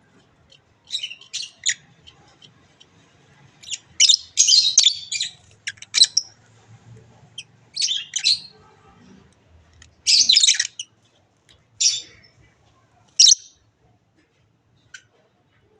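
Small pet parrots chirping and squawking in short, harsh bursts of high chatter, about a dozen times, loudest about four to five seconds in and again about ten seconds in.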